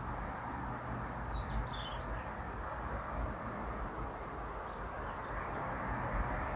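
Daurian redstart calling: scattered short, high whistled notes, with a quick twittering run of descending notes about one and a half seconds in. A steady low background rumble runs underneath.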